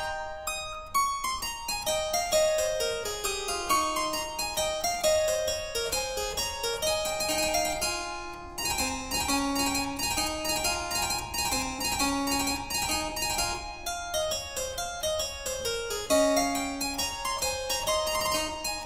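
Background instrumental music of quick runs of notes, some falling steadily over a few seconds.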